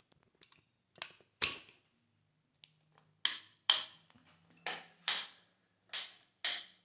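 Newly installed rocker wall light switch clicked on and off repeatedly, about eight sharp clicks in quick pairs, as the switch is tested to see that it turns the bulb on and off.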